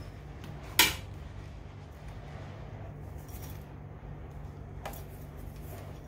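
Metal motorcycle exhaust parts being handled: one sharp metallic clack about a second in and a fainter tap near five seconds, over a low steady hum.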